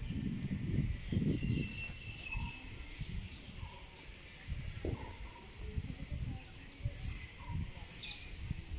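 Open-air ambience: birds chirping, with a short clear chirp about two seconds in, over a steady high hiss, and low gusty rumbling of wind on the phone's microphone.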